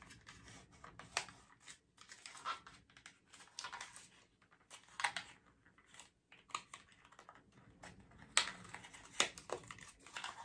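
A small cardboard cosmetics box being handled and opened by hand: irregular clicks, taps and rustles of card.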